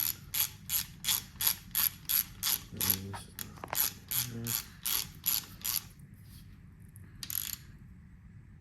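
Hand socket ratchet clicking in steady back-and-forth strokes, about three clicks a second, as it runs down the rocker arm bolts on a KA24DE cylinder head. The clicking stops about six seconds in, with one more short burst a second later.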